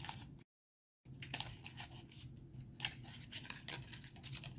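A small cardboard box being handled and worked open: scattered light clicks, taps and rustling of the packaging. The sound drops out completely for about half a second near the start.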